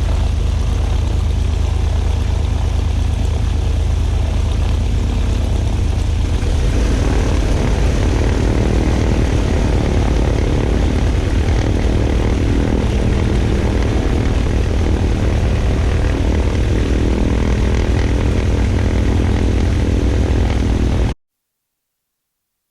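Twin piston engines of a Cessna 310 running steadily with propellers turning. The sound fills out and gets a little louder about six or seven seconds in, then cuts off abruptly near the end.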